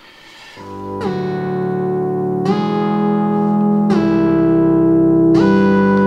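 Music played back through a tube preamplifier and bench speakers, picked up by a microphone in the room. It fades in about half a second in and grows louder, with sustained chords that change about every second and a half.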